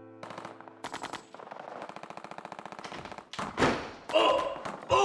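Rapid machine-gun fire, a comedy sound effect: a fast, even rattle of shots for a few seconds, then several louder bursts near the end.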